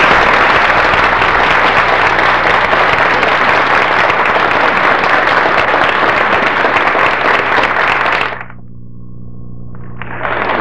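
An audience applauding, stopping about eight seconds in. A steady low hum runs under the clapping and remains after it.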